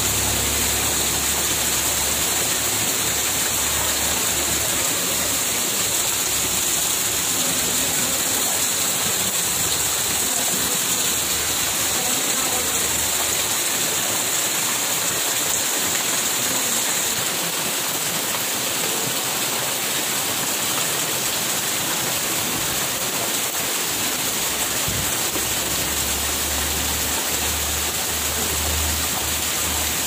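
Steady rush of muddy floodwater flowing fast past a dirt bank.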